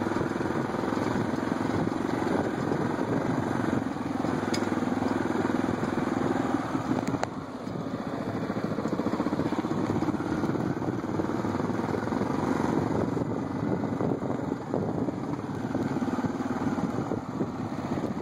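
ATV engine running steadily as the quad rides along a dirt trail, easing off briefly about seven and a half seconds in, with a couple of faint knocks.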